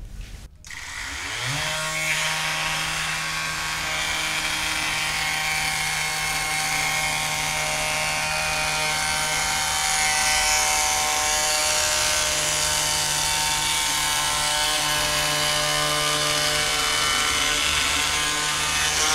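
SWIX Evo Pro electric edge tuner running, its fine stone spinning at high speed and grinding the side edge of a ski. The motor spins up about a second and a half in, then holds a steady hum under a gritty grinding noise.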